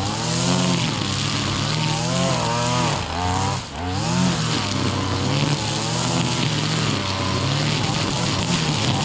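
Brush cutter clearing grass along a hedge, its small engine running at high revs with the pitch swinging up and down as the cutting head takes load. It eases off briefly about three and a half seconds in, then picks up again.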